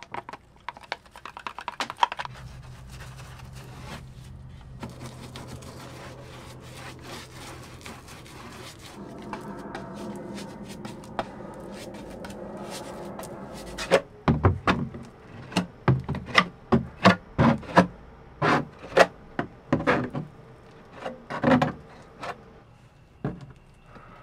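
Hand work on a wood and epoxy repair. A stick clicks rapidly against a plastic mixing cup as epoxy is stirred. A steady low hum follows, then from about halfway a long run of loud, irregular rubbing and scraping strokes on wood.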